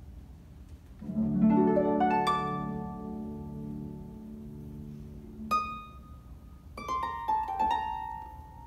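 Ensemble of concert pedal harps playing. About a second in, a low chord rolled upward note by note rings out and slowly dies away. A single high plucked note follows, then a few scattered higher notes near the end.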